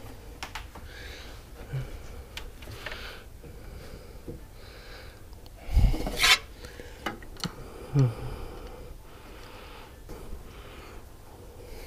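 A man breathing heavily and sniffing close to the microphone while he works under a car's hood, with small clinks and rubbing of metal tools on hoses and hose clamps. There are a couple of louder knocks, about six and eight seconds in.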